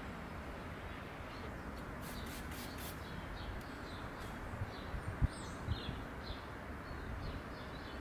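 Faint outdoor ambience with small birds chirping, four short hissy bursts about two seconds in, and a few soft thumps around five seconds in.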